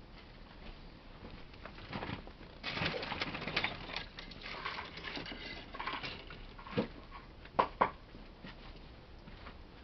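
Footsteps scuffing and scraping on a dirt and concrete yard as a person walks away, followed by a few sharp knocks, the two loudest close together near the end.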